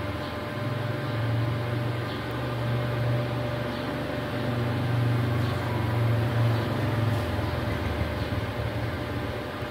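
Steady mechanical hum of running machinery, with a deeper low drone that swells in about half a second in and fades out near the end.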